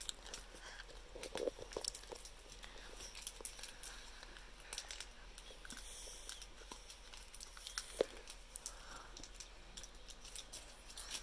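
Foil wrapper of a Pokémon card booster pack crinkling and tearing as fingers pick and peel it open, in scattered small crackles with a sharper snap about eight seconds in.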